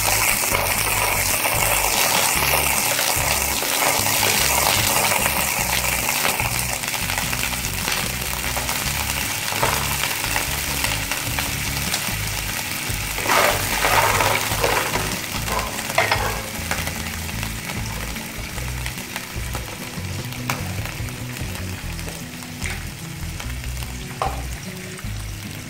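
Blood cockles sizzling in hot oil in a nonstick frying pan as they are stir-fried, a steady frying hiss that slowly fades. A few sharper clacks of spatula and shells against the pan come about halfway through.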